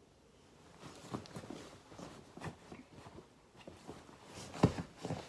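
Soft rustling and scattered light knocks of a blanket being pulled off a bed, with one louder thump near the end.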